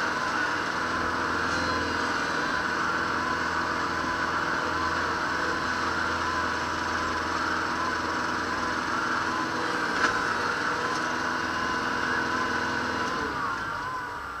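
Kubota Grand L5740 tractor's diesel engine running steadily, with a wavering whine over it.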